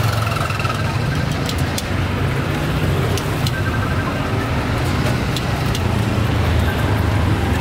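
Busy street ambience: a steady low rumble of passing traffic, with scattered light clicks and clinks over it.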